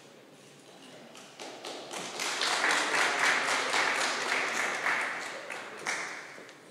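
Audience applauding. The clapping builds up about a second and a half in, is loudest in the middle, and dies away near the end.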